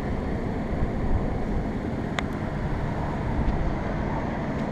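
Steady low outdoor rumble, like distant traffic or wind on the microphone, with a single sharp click about two seconds in. The condensers themselves are off and silent.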